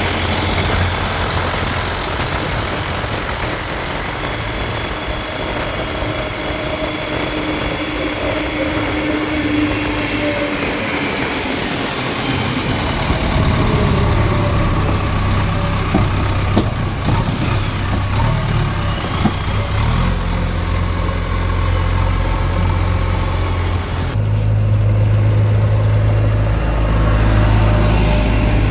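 Diesel engines of a JCB 3DX backhoe loader and a tractor running at work. The low engine note grows stronger about halfway through and louder again near the end.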